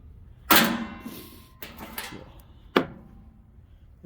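A few knocks and clanks from the metal parts of a commercial water cooler being handled during teardown: a loud one about half a second in, two smaller ones, and a sharp one near the end.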